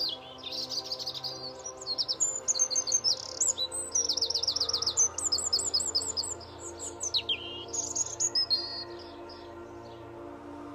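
A songbird singing a long, varied song of quick high chirps and trills, which stops about nine seconds in. Soft, steady background music sustains underneath.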